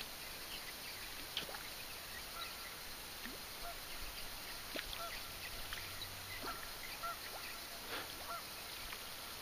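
Faint waterfowl calling: a run of short calls, repeated several times from about four seconds in, over a low steady background hiss with a few faint clicks.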